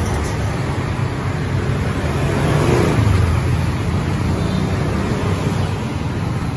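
Steady road traffic rumble, swelling a little about halfway through as a vehicle goes by.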